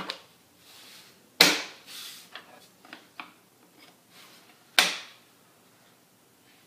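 Wooden runner strips being handled in the metal table saw top's miter slots: three sharp wood-on-metal knocks, the loudest about a second and a half in and near the five-second mark, with softer sliding, rubbing and small clicks between.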